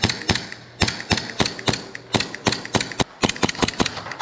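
Airsoft guns firing a steady string of sharp shots, several a second, coming faster after about three seconds in.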